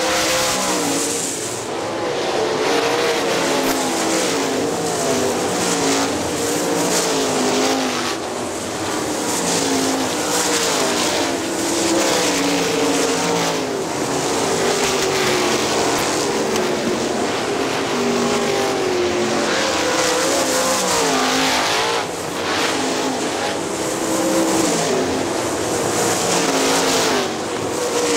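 Several 410 sprint cars racing, their methanol-burning 410-cubic-inch V8 engines revving hard. The engine pitch keeps rising and falling as the cars lift for the corners, accelerate off them and pass.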